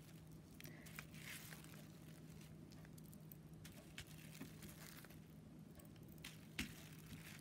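Faint crinkling and rustling of plastic wrap and shimmer paper as the paper is lifted off and pressed back down onto the inked wrap, with a few light taps, one a little louder near the end, over a steady low hum.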